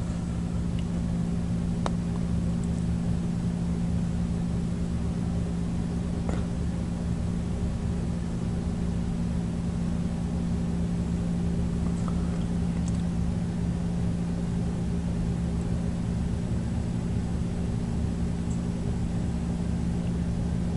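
A steady low electrical or mechanical hum, with a few faint clicks.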